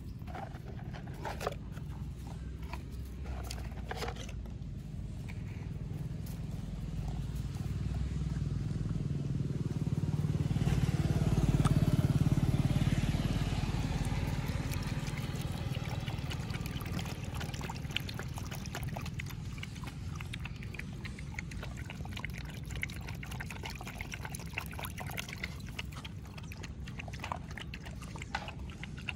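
A motor vehicle passing by, its engine and tyre noise swelling slowly to a peak about twelve seconds in and then fading away. A few light sharp taps come in the first few seconds and again near the end.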